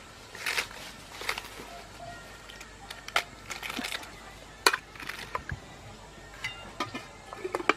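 Metal ladle clinking and scraping against an aluminium pot while pressing down raw cabbage leaves, with the leaves rustling and crunching: a string of short, irregular clinks and rustles.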